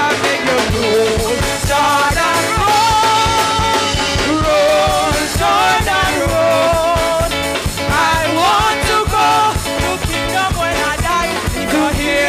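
Voices singing a gospel chorus with a live church band, a steady drum beat underneath.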